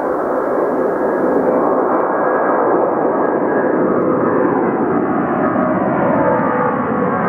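Twin-engine wide-body jetliner's turbofans at takeoff thrust as it climbs out close overhead: a loud rushing roar that builds, with engine tones sliding down in pitch in the second half as the aircraft passes.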